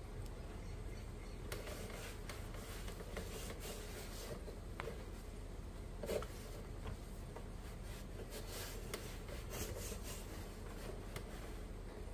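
Cloth rubbing and wiping over the plastic body of an electric indoor grill, with scattered light clicks and a small knock about six seconds in.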